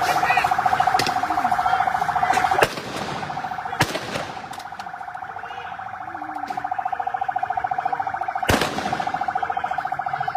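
A siren with a fast, steady warble. It drops in loudness about two and a half seconds in and builds back up from about six seconds. A few sharp cracks cut across it, the loudest just before the drop and another about eight and a half seconds in.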